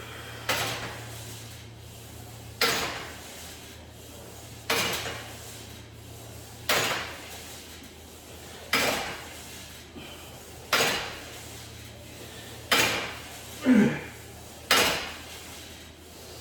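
Sharp knocks or clanks repeating about every two seconds, one per repetition of an ab exercise, nine in all, with one extra knock between the last few.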